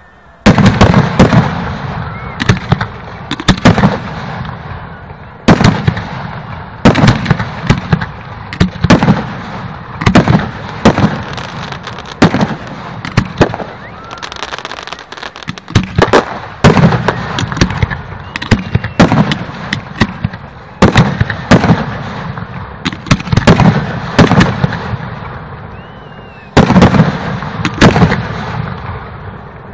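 Aerial fireworks display: a rapid, continuous series of loud bursting shells, bangs coming every half second to two seconds, each booming and rumbling away as the next goes off, heard through a phone's microphone.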